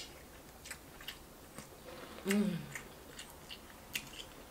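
Close-up chewing and biting of red king crab meat, with scattered sharp clicks and smacks. A short hummed voice sound comes about two and a half seconds in.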